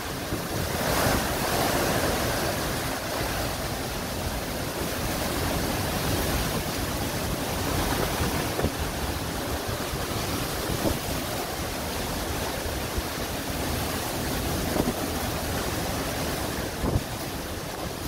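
Derecho winds blowing hard and steadily with heavy driving rain, swelling in a gust about a second in.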